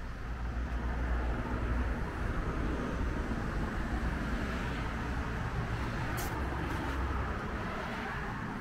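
Road traffic going by: a steady low rumble of vehicles that swells over the first couple of seconds and slowly eases off. A brief click sounds a little past halfway.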